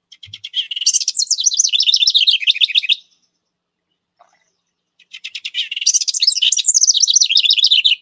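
Recording of a house wren singing its typical eastern U.S. song, twice, about three seconds each: each song starts with a rapid run of ticking notes and breaks into a fast bubbling cascade that falls in pitch.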